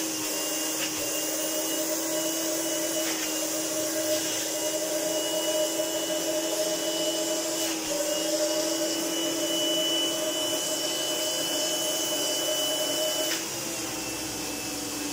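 Hoover Enigma Evo PU31 upright vacuum cleaner's 350-watt motor running with its filter removed: a steady drone with an airy hiss and a thin high whistle. The whistle stops and the sound drops a little about thirteen seconds in. Air is leaking past the unsealed plastic motor cover, which is why the machine gives so little suction.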